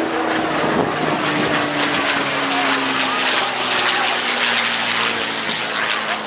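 Supermarine Spitfire Mk XI's Rolls-Royce Merlin V12 engine running as the aircraft flies past, the engine note dropping in pitch as it passes.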